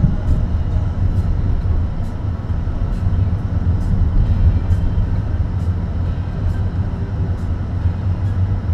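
A car driving at low speed, heard from inside the cabin: a steady low rumble of engine and tyre noise.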